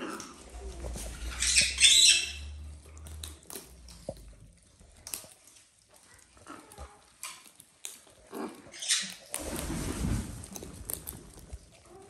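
Macaws cracking seeds and clicking their beaks against a metal feeding tray: scattered sharp clicks and crackles. A loud harsh burst comes about two seconds in, with a smaller one later.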